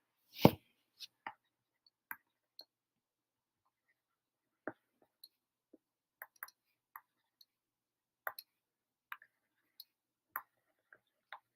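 Faint, scattered short clicks and taps at an irregular pace, with one louder, fuller thump about half a second in.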